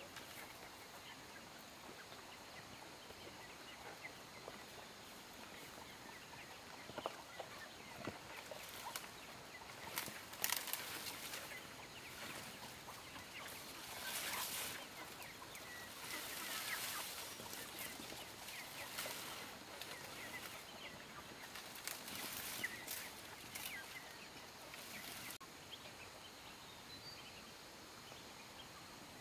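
Chickens clucking quietly, with short bursts of rustling noise in between.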